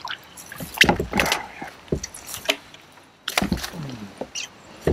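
Scattered knocks, rustling and splashing as a hooked smallmouth bass is landed by hand and handled in a kayak.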